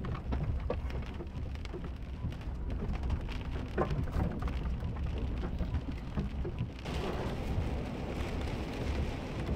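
Rain pattering on the windshield and body of a Chevrolet Silverado pickup, heard from inside the cab, over the steady low rumble of the truck driving on a wet road. About seven seconds in, a louder hiss comes in.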